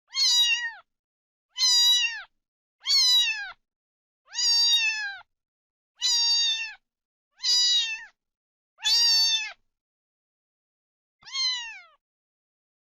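Kitten meowing: eight high-pitched meows, each under a second and dropping in pitch at the end, spaced about a second or more apart, with a longer pause before the last one.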